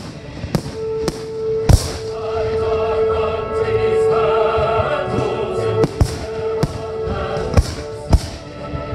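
Aerial firework shells bursting in sharp booms, about seven of them, the loudest a little under two seconds in. Music with singing and a long held note plays under them.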